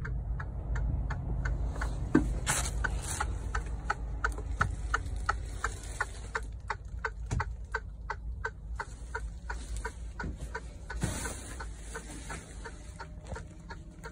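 Steady, rapid ticking inside a truck cab, about four clicks a second and even in rhythm, over a low, constant rumble.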